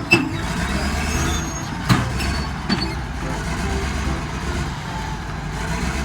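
A heavy vehicle's engine running steadily, with a few sharp clicks, cutting in and out abruptly like an inserted sound effect.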